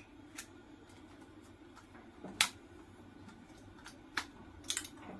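Pliers clicking and snapping as they grip and tear nickel strips off the lithium-ion cells of a DeWalt power-tool battery pack: a handful of separate sharp clicks, the loudest about two and a half seconds in and a quick pair near the end.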